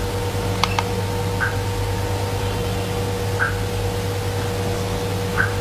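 Cryolipolysis slimming machine running with a steady hum and hiss and a fixed tone, with a short blip about every two seconds and a couple of light clicks about half a second in.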